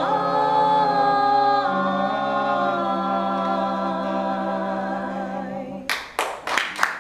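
Mixed four-voice a cappella carolers, two men and two women, sing the close of a Christmas carol and hold the final chord for several seconds as it fades. Applause breaks out about six seconds in.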